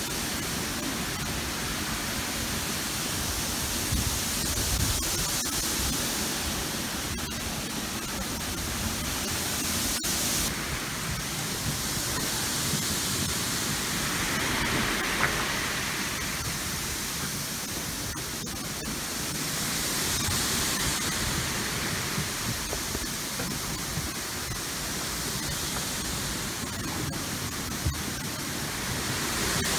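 Steady rushing noise of a boat moving through a sea covered in floating pumice stone, swelling and easing slowly.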